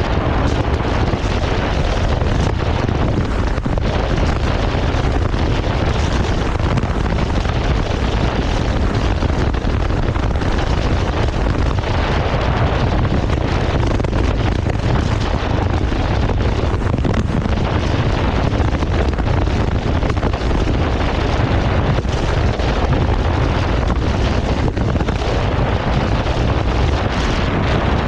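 Steady wind rush on the microphone over the running Triumph Tiger 1200's three-cylinder engine while riding.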